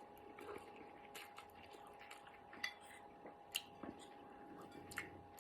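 Quiet chewing of chewy instant noodles: faint wet mouth clicks and squishes, with a few short sharper ticks, the clearest about three and a half seconds in.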